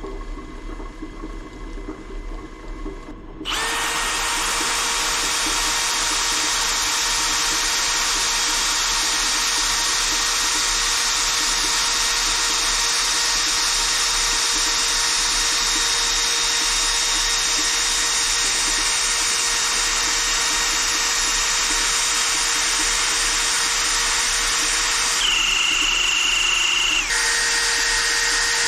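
Steel wool pressed against the spinning pulley of an old South Bend lathe's motor: a steady loud scouring hiss with a whine that starts suddenly a few seconds in, over the quieter running of the motor. Near the end the whine jumps higher for a moment and then settles back.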